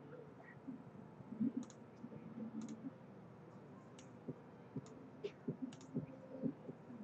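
Computer mouse clicking: several short, sharp clicks at irregular intervals, with a few soft knocks from handling on the desk.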